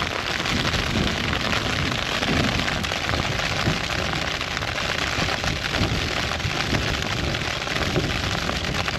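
Rain pattering steadily and densely on a Hilleberg tent's flysheet, heard from inside the tent, with wind gusting against it in a low, uneven rumble.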